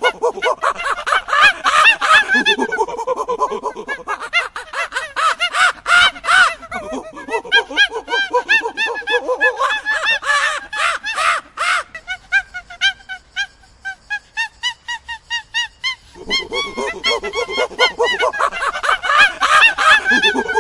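Monkeys calling in a rapid, excited run of pitched cries, several voices overlapping. The calls thin out to a few fainter rising notes for some seconds past the middle, then a loud dense chorus starts again.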